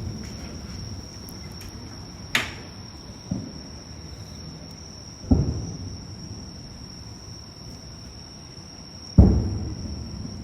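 Distant fireworks shells bursting: low booms, three in all, the last and loudest near the end, with a sharper crack about two seconds in. A steady high chirring of crickets runs underneath.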